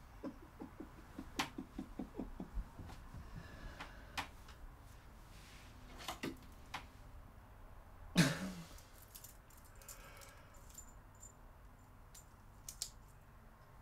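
A man laughing softly in quick, short pulses for the first two to three seconds. Then scattered light clicks and knocks of small objects being handled, with one louder short sound about eight seconds in.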